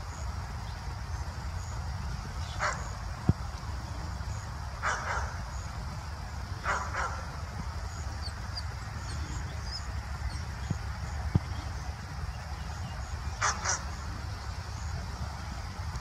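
Dog barking in short single barks a few seconds apart, with a quick pair near the end, over a steady low rumble.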